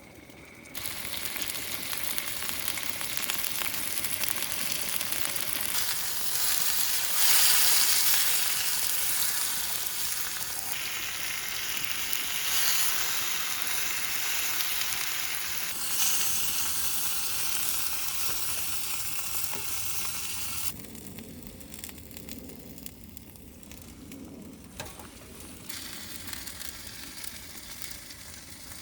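Dak-galbi (spicy marinated chicken) sizzling in a hot pan over a wood fire. The sizzle starts abruptly about a second in and is loudest around seven seconds. It falls suddenly to a much quieter sizzle about twenty-one seconds in.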